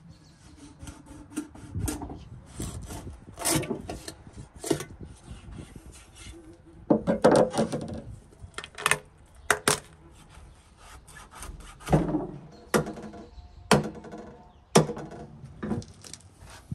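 Irregular sharp knocks and cracks mixed with scraping and rustling, a dozen or so strikes spread unevenly with no steady rhythm.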